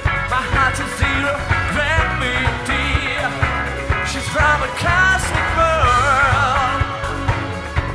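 Live rock band playing: a male lead singer over electric guitar, bass and drum kit, his held notes wavering in vibrato in the second half.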